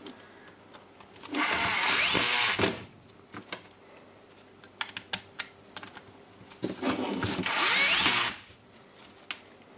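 Cordless drill-driver running twice, each time for about a second and a half, driving screws into a plastic tool housing. Small handling clicks come between the two runs.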